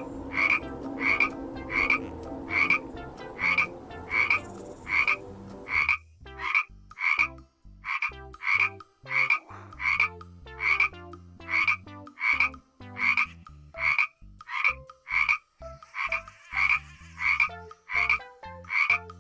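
A frog croaking over and over, one short call about every three-quarters of a second, with a steady low hum beneath it that stops about six seconds in.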